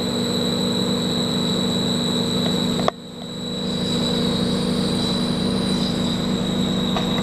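CNC lathe cutting a pinewood derby wheel under flood coolant: a steady spindle-motor hum with a steady high whine and a hiss over it, as the tool draws across the wheel face toward the centre hub near the end of the program. About three seconds in there is a sharp click, and the whole sound briefly drops and then swells back.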